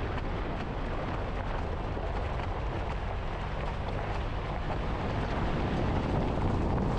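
2016 Toyota 4Runner driving along a mountain road: a steady rumble of engine and road noise that grows slightly louder toward the end.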